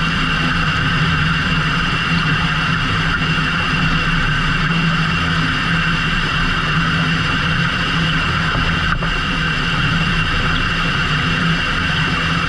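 Fishing boat's engine running steadily under load, with a low hum and a steady high whine over it.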